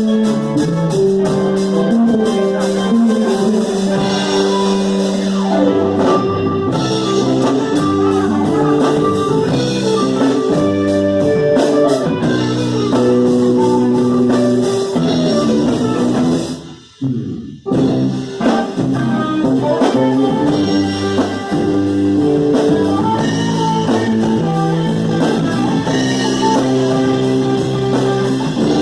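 Live band music with guitar and drums playing steadily, cut by a short stop of about half a second roughly two-thirds of the way through.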